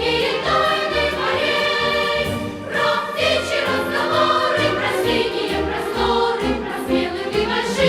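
Background music: a choir singing over a low, regular beat.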